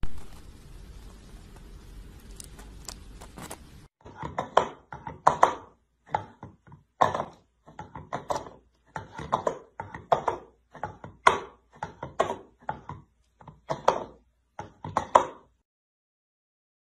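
A cat slapping its paw down into an orange plastic bowl again and again, a series of sharp hollow thunks about once or twice a second, starting about four seconds in.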